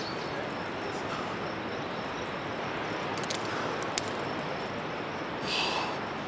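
Steady outdoor background hiss with a few sharp metallic clicks between three and four seconds in, fitting a carabiner gate snapping as the rope is clipped into a quickdraw. A short breathy hiss comes near the end.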